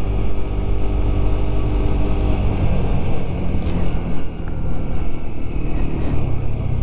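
Small motorcycle's engine running under way, with wind and road noise. The engine note changes about halfway through as the bike slows down.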